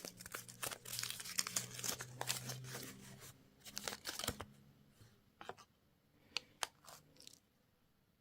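A candy wrapper crinkling and tearing as it is opened. The crinkling is dense for about the first three seconds, then thins to scattered crackles and clicks.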